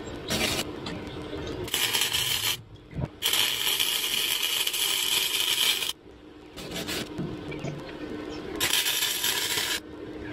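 Harbor Freight arc welder laying short welds on steel: five bursts of crackling arc hiss that start and stop abruptly, the longest about two and a half seconds in the middle. This is the chain hook being welded onto the tractor's three-point lift arm. A faint steady hum continues between the bursts.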